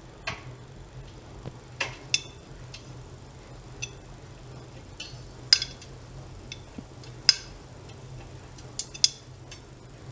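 Privileg Dynamic 7420 washing machine: irregular sharp clicks and clinks, about a dozen over ten seconds, over a steady low hum.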